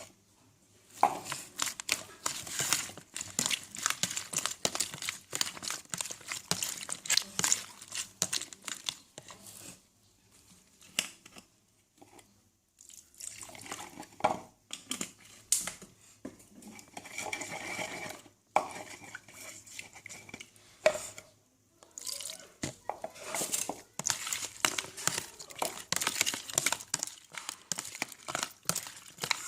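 Kitchen handling sounds: many short clicks and knocks of dishes and utensils, with dripping and splashing water, stopping briefly twice.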